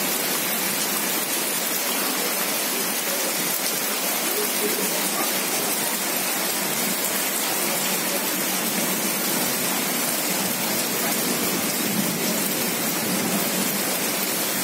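Steady rain falling on wet paved ground: an even, unbroken hiss of splashing drops.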